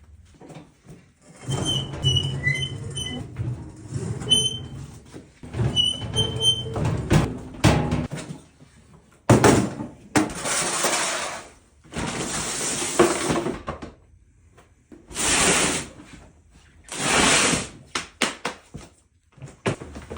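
Workshop gear being moved and shifted around: a run of short, high squeaks in the first few seconds, scattered knocks, then five separate scraping, sliding noises of a second or two each.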